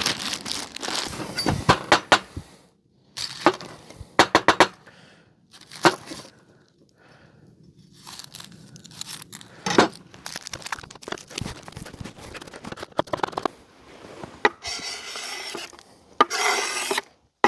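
Plastic packaging crinkling and tearing, with irregular sharp clicks and knocks, as baby carrots are handled and added to a cast iron Dutch oven.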